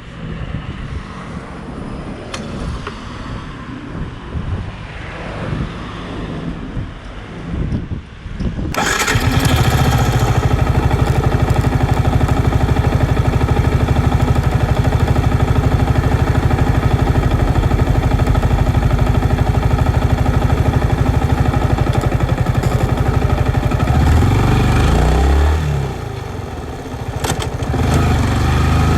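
2019 Yamaha MT-15's single-cylinder engine starting up suddenly about nine seconds in, after a stretch of quieter uneven background noise, then idling with an even, pulsing beat. Near the end the engine sound dips and wavers for a couple of seconds before settling again.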